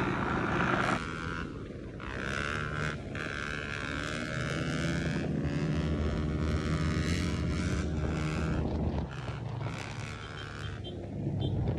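Dirt bike engines running hard during a wheelie ride, with wind on the microphone. The engine pitch climbs and holds, eases off about nine seconds in, then picks up again near the end.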